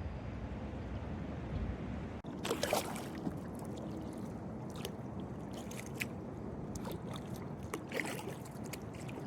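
Kayak paddle strokes splashing in the water, a few separate splashes over a steady low rush of water.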